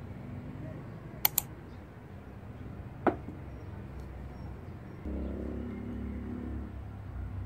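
A ceramic plate set down on a wooden desk: two light clicks, then a single sharp clink with a short ring about three seconds in. From about five seconds a low steady rumble comes in under it.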